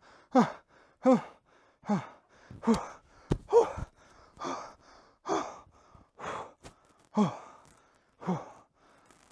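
A man gasping and whimpering in distress: short, pained cries about once a second, each falling in pitch. A single sharp click comes a little past three seconds in.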